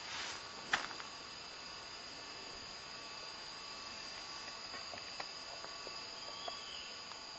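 Steady, high-pitched drone of insects calling, several held tones at once without a break, with a couple of sharp clicks near the start.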